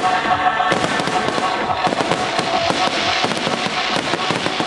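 Aerial fireworks shells bursting in a rapid, dense barrage of bangs and crackling.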